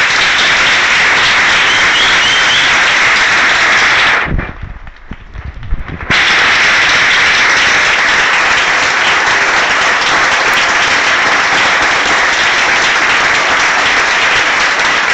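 Audience applauding. The applause drops away abruptly for about two seconds some four seconds in, then comes back at full strength.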